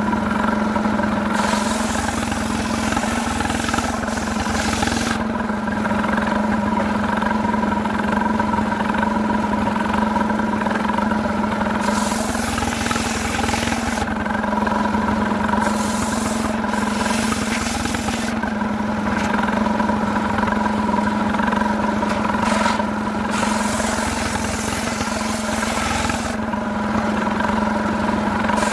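Two-stroke chainsaw running steadily at high revs, sawing through jackfruit wood, with the cutting noise swelling and easing every few seconds.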